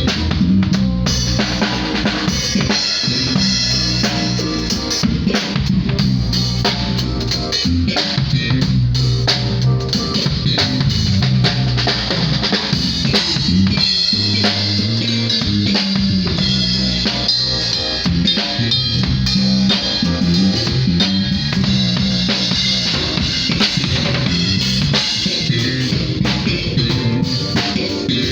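Live band playing a steady groove, the drum kit to the fore with a bass line moving underneath.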